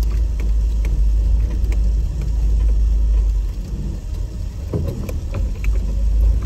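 Toyota off-road truck driving slowly along a dirt trail: a steady low rumble from the engine and running gear, with small knocks and rattles scattered through it.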